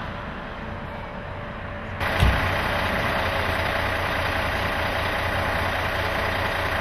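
Bus engine idling with a steady low hum. The sound steps up abruptly about two seconds in, followed by a short thump, the loudest moment.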